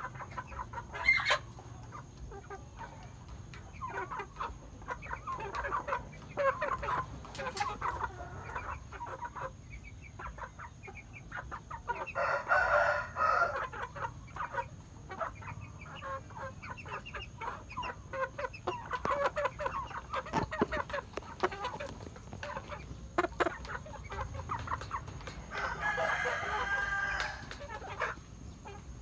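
Chickens clucking close by, with many short calls scattered throughout. Two louder, longer crows come about twelve seconds in and near the end.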